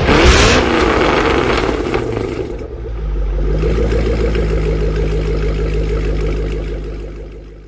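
Car engine revving briefly, then settling into a steady, lumpy idle that fades out near the end.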